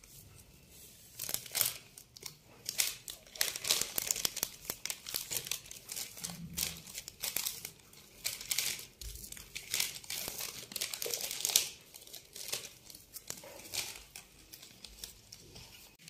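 A thin plastic packing sheet crinkling and rustling in short irregular bursts as a silicone spatula and a hand press and spread a mince filling across the layer lying on it.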